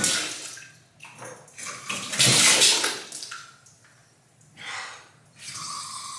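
Hot water from a freestanding tub filler's hand shower spraying into a plastic bucket in uneven spurts, settling into a steadier flow near the end.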